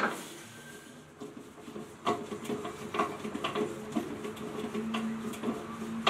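Scattered light clicks and knocks of top-load washer agitator parts being handled and fitted, starting about two seconds in.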